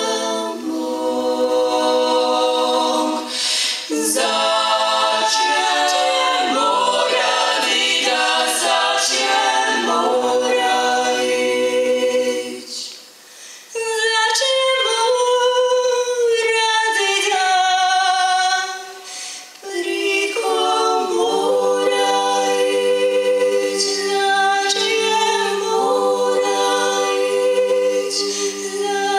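Female klapa ensemble singing a cappella in close multipart harmony, holding long chords, with brief breaks between phrases about thirteen and twenty seconds in.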